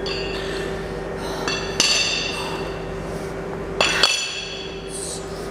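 Cast metal weight plates clinking and ringing against a curl bar as they are slid off between drop-set sets. There are a few sharp clinks, each with a short ring: two close together a little before two seconds in, and another pair about four seconds in.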